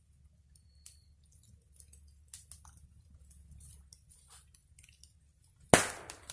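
Wood bonfire crackling, with scattered small snaps and pops, and one loud sharp pop near the end followed by a burst of denser crackling.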